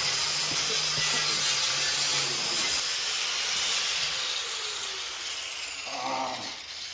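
Handheld power tool scrubbing overspray paint off a rubber tire with a high whine, then spinning down, its pitch falling from about four seconds in.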